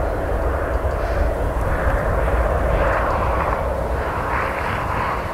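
Jet engines of a twin-engine airliner landing, heard from behind as it flies away toward the runway. Strong gusty wind rumbles on the microphone underneath.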